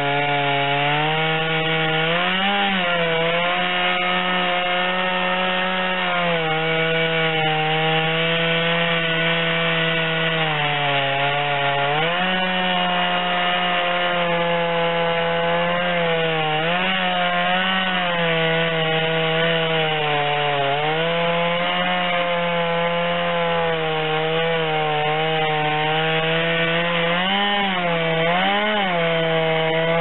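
Stihl MS251 two-stroke chainsaw held at full throttle, ripping a log lengthwise in an Alaskan chainsaw mill. The engine note sags under the load of the cut and picks up again several times, briefly rising higher about two seconds in and twice near the end.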